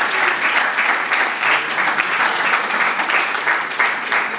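Audience applauding: many people clapping at once, a steady, dense clatter of hand claps.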